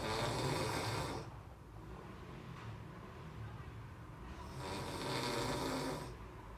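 A man snoring heavily in his sleep: two long snores about five seconds apart, each lasting over a second, with quiet breathing between them.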